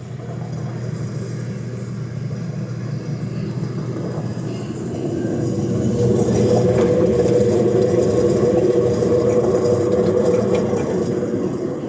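Midea washing machine drum spinning and very noisy, growing louder about five seconds in as the spin picks up, with a steady hum over the rattle of the drum. The noise is the sign of a faulty tripod shaft (the drum's spider shaft), as the owner diagnoses it.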